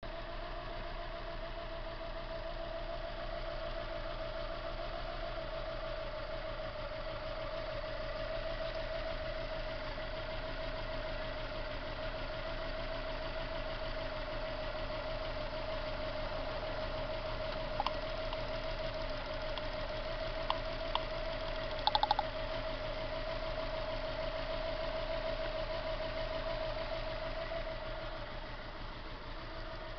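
Subaru EJ22T turbocharged flat-four idling roughly with a misfire, below about 750 rpm. A few short sharp clicks come about two-thirds of the way through.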